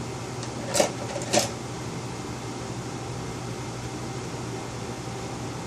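Two short clicks of small parts being handled at a laptop's open Wi-Fi card bay, about a second in, over a steady low hum of room noise.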